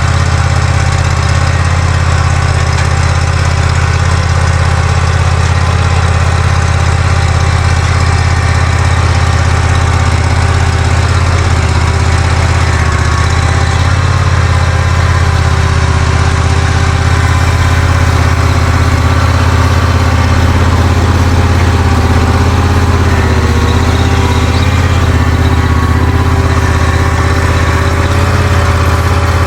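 A stump grinder's engine running loudly and steadily, with a slight wavering in pitch in the second half.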